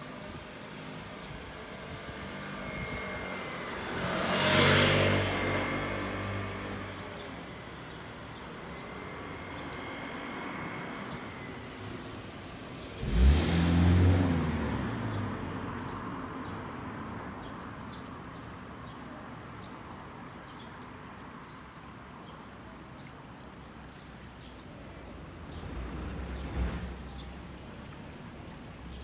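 Street ambience with cars passing close by: two loud pass-bys, one about five seconds in and one about thirteen seconds in, and a fainter one near the end.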